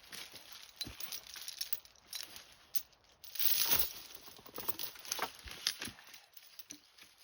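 Footsteps and rustling in dry leaves and brush: irregular crackles and light knocks, with a louder rustle about three and a half seconds in.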